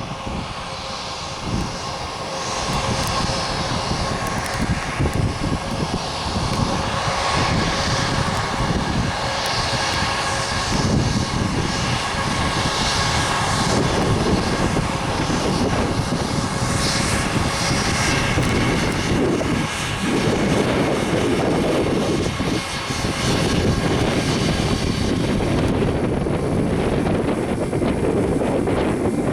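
Airbus A320-232's twin IAE V2500 jet engines running at high power, heard from inside the cabin during the takeoff run. Steady whining tones sit over a dense roar and an uneven low rumble, growing louder over the first few seconds and then holding.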